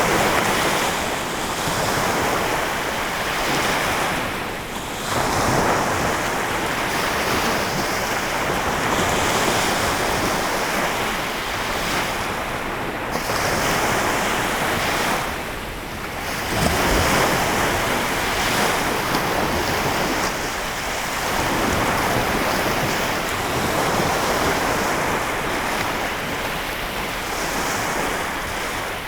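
Lake Michigan waves breaking in a continuous rush that swells and eases every few seconds, with brief lulls about five and sixteen seconds in.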